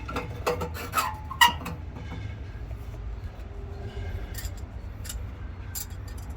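Sharp clicks and light scraping of metal clamp hardware being handled and fitted, several in quick succession in the first two seconds, then a few more spaced out, over a steady low rumble.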